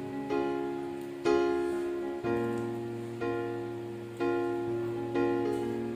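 Background music: soft instrumental chords struck about once a second, each fading away before the next.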